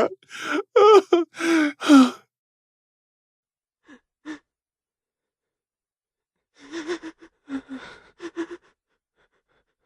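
A man crying: a few voiced, gasping sobs in the first two seconds, then a pause, then a run of quick breathy, catching sobs a little after halfway through.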